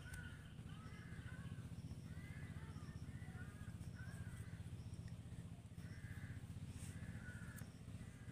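Crows cawing faintly and repeatedly, many short calls over a few seconds, above a steady low hum.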